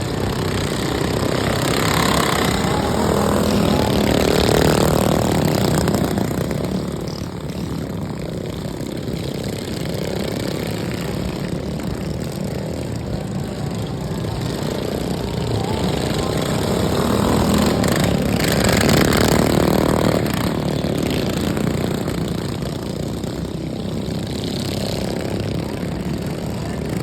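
Engines of modified racing lawnmowers running hard on a dirt track, growing louder twice as they pass close by, then fading again.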